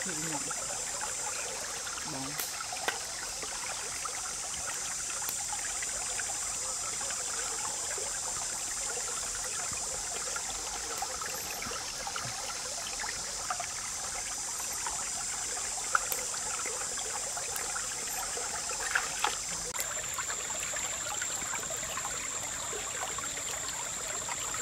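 Shallow stream flowing and trickling steadily, with a few sharp knocks as fish are washed by hand in an aluminium bowl of water. A steady high hiss runs over it.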